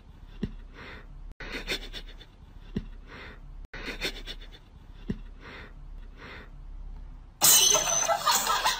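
A cat sniffing at a socked foot in a row of short breathy puffs, with a few faint clicks. About seven seconds in comes a sudden loud, harsh, noisy sound as the cat opens its mouth.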